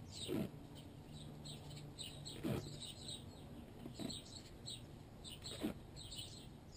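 Small birds chirping, with four short strokes of self-adhesive vet wrap being unrolled and pressed around a dog's leg, spaced about every 1.5 to 2 seconds.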